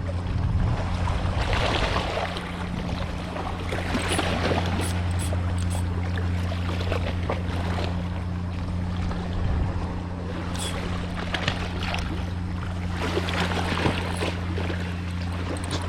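Boat engine running at a steady low hum, under an uneven rushing noise of water and wind.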